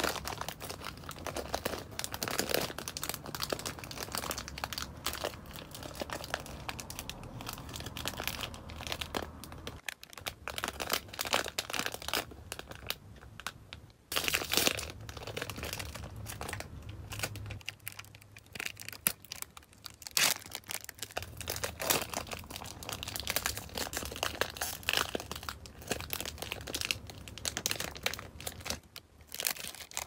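Plastic food packaging crinkling as it is handled, in irregular crackles with a couple of short pauses.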